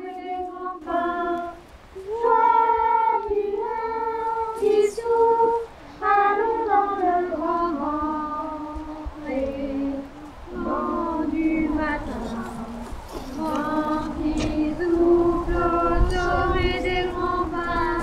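A group of children and a woman singing a song together without accompaniment, in phrases of held notes with short breaths between them.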